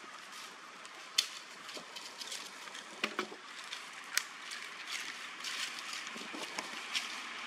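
Scattered sharp crackles and rustles of dry leaves over a steady outdoor hiss, with a few louder snaps.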